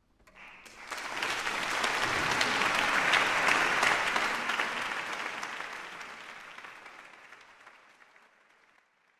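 Audience applauding at the end of the performance. It breaks out just after a quiet close, swells for a few seconds, then dies away.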